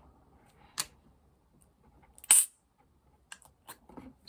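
Fidget putty being handled and tested: a sharp click about a second in, a loud snapping pop a little after two seconds, then a few smaller clicks near the end.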